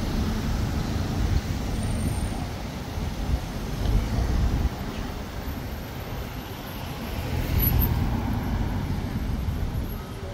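Passing vehicles on a city street: a low rumble that swells about four seconds in and again near eight seconds.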